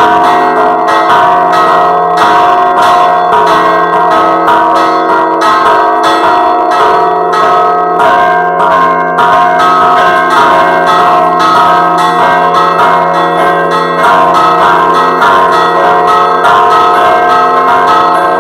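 Church bells ringing a repique at close range: a large bell and a smaller one, hanging fixed, struck rapidly by clappers pulled on ropes. The strokes come several a second and their ringing tones overlap into a continuous loud peal.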